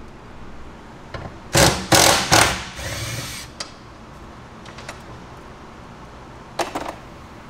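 Cordless impact wrench hammering in three short loud bursts about a second and a half in, breaking loose a rear seat-rail bolt, then running on more quietly for about a second as the bolt spins out. A couple of short knocks near the end.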